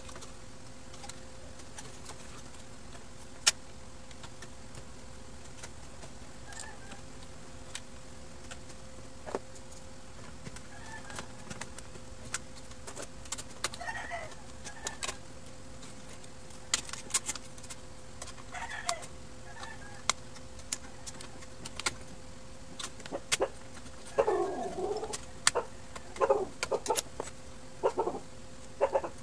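Scattered sharp clicks and taps of metal and plastic printer parts being handled and fitted, over a steady low hum. In the last few seconds a run of short calls sounds in the background.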